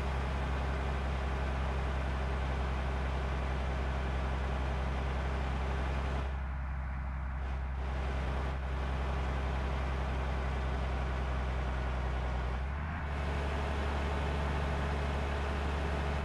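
A vehicle's engine running steadily: a constant low hum under a continuous hiss of noise.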